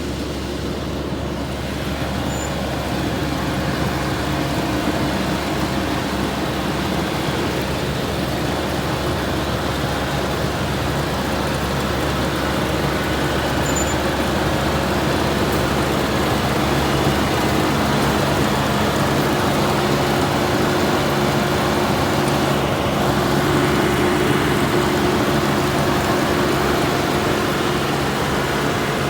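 Rice combine harvester running steadily: a low engine hum with a broad machinery noise over it.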